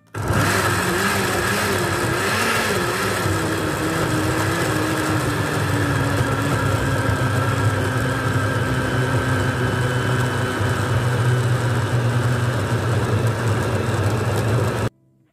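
Hamilton Beach countertop blender pureeing a jug packed with rum-and-wine-soaked dried fruit. The motor starts at once and runs steadily, its pitch wavering for the first few seconds and then settling slightly lower, and cuts off abruptly near the end.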